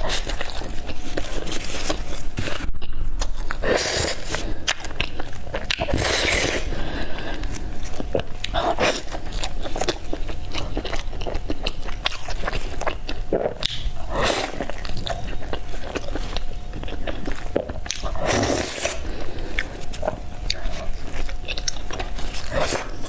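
Close-miked mukbang eating of peanut and black sesame bread: a continuous run of bites and wet chewing with many small clicks, and a few louder noisy moments spread through.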